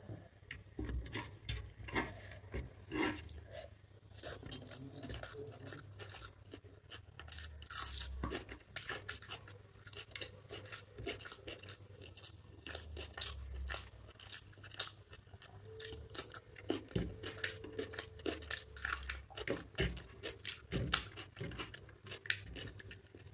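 Close-miked chewing of a person eating chicken biryani by hand, heard as many short, irregular clicks and smacks, with fingers working rice on the plate.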